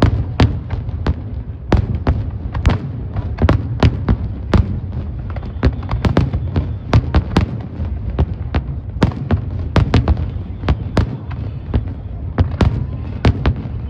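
Fireworks going off in quick succession: sharp bangs about two to three a second over a continuous low rumble.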